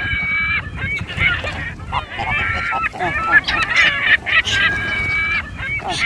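A flock of waterbirds, geese and gulls, calling over one another: many short overlapping calls, with a few longer held calls at the start and about five seconds in, over a low rumble.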